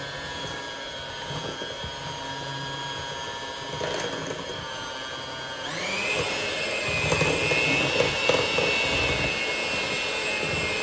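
Corded electric hand mixer running with its beaters in cake batter, beating in flour: a steady motor whine that steps up to a higher speed about six seconds in and grows louder.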